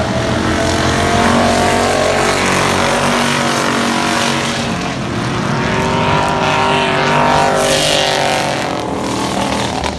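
Stock-car engines running at speed around an oval track, their pitch rising and falling as the cars pass by.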